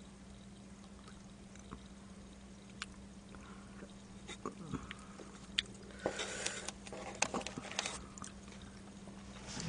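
Quiet mouth sounds of chewing fried chicken, with a few faint clicks. From about six seconds in, a stretch of rustling paper with sharp clicks as chopsticks pick through chicken in a paper-lined box. A steady low hum lies under it all.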